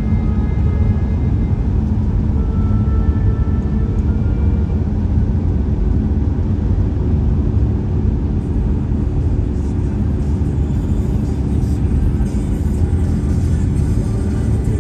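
Steady low road and tyre rumble heard inside a car's cabin at highway speed, with faint music from the car radio underneath.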